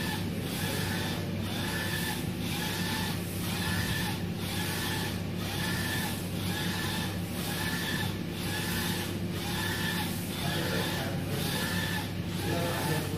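UV flatbed printer printing: the print-head carriage shuttles back and forth about once a second, each pass a whirring motor whine broken by a short gap at the turnaround, over a steady low hum.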